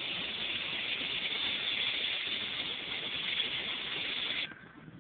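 Steady airliner cabin noise, engine and air hiss, after landing. The hiss drops away suddenly near the end.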